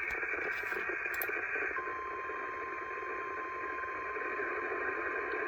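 Radio receiver static, a steady hiss. About two seconds in, a steady single tone just above 1 kHz joins it: the 1050 Hz weather radio warning alarm tone that comes before a broadcast warning.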